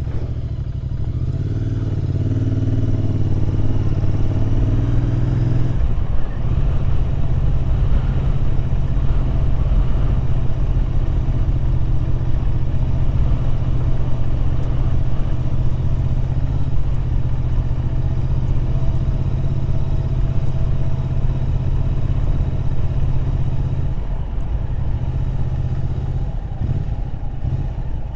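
Royal Enfield Interceptor 650 parallel-twin engine running on the move. It picks up speed over the first few seconds, then holds a steady cruising note, with a short drop in the engine note about 24 seconds in.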